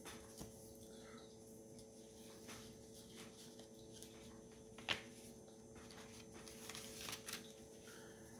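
Near silence with a low steady hum, broken by a few faint clicks and rustles of hands handling packaging, with one sharper click about five seconds in.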